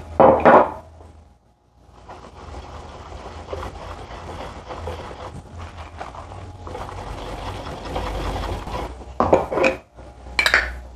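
A wire whisk stirring flour into cornmeal cake batter in a bowl: a steady swishing scrape lasting several seconds. Sharp clinks of utensils against the bowl and jar come at the start and again near the end.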